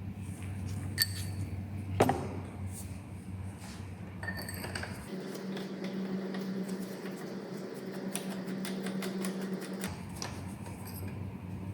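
Metal tools clicking and clinking as a spark plug is worked out of the engine's plug hole, with a sharp knock about two seconds in, over a steady low hum.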